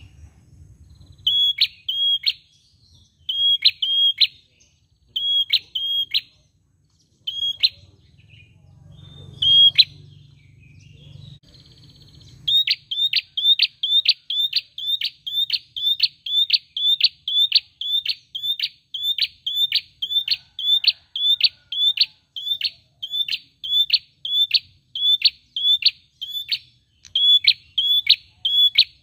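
Caged tailorbird (prenjak) calling with short, sharp, high chirps. For the first half they come in pairs and threes every couple of seconds, then about halfway they become a fast, steady run of about two chirps a second.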